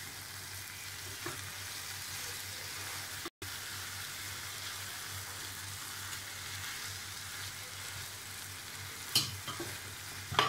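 Eggs, tomatoes and habanero peppers sizzling steadily in a frying pan as a spatula stirs through them. Two sharp knocks of the spatula against the pan come near the end.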